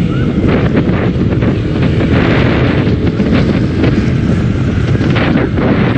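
Wind rushing and buffeting over the microphone of a moving motorcycle, with the motorcycle's engine running beneath it.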